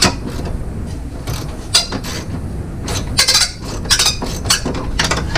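Irregular metallic clanks and scrapes, about a dozen in a few seconds, as thin truck sheet metal is pried and bent with hand tools to gain clearance around the wiper motor.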